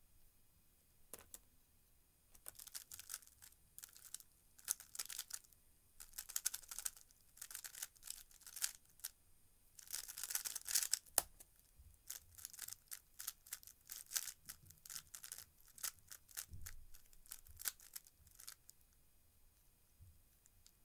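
A 3x3 speedcube being turned very fast, its plastic layers clicking and clacking in rapid flurries through a solve of under nine seconds. About eleven seconds in a sharp knock on the laptop's keyboard stops the timer. Further bursts of turning follow.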